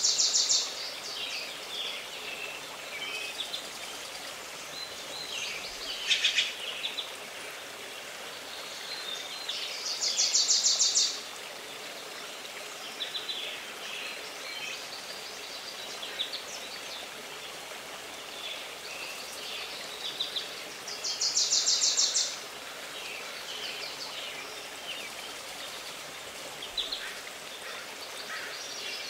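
Forest birds singing over a steady rushing background. One bird repeats a loud, high, fast trill about a second long three times, roughly ten seconds apart, among scattered shorter chirps.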